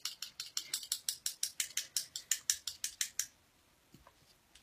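A small tube of LipSense liquid lipstick being shaken hard, rattling in a quick even rhythm of about six clicks a second. The shaking stops abruptly about three seconds in.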